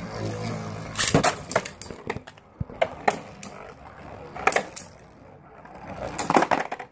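Spinning Beyblade battle tops clashing, with a whirring hum at the start, sharp clacks scattered through, and a quick run of rattling clicks near the end.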